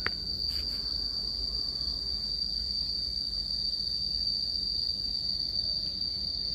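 Insects shrilling: one steady, unbroken high-pitched tone, with a low rumble underneath.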